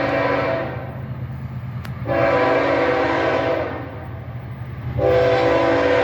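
Diesel locomotive air horn blowing a chord of several tones in repeated long blasts: one ending just after the start, another about two seconds in lasting a second and a half, and a third starting near the end, over the steady low rumble of the locomotive.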